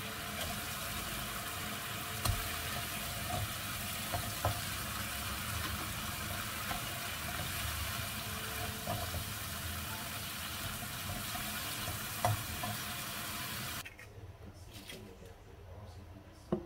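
Fried carp and chili paste sizzling in a wok while a plastic spatula stirs them, with a few knocks of the spatula against the pan. The sizzling cuts off near the end, leaving a quieter room with a few small clicks.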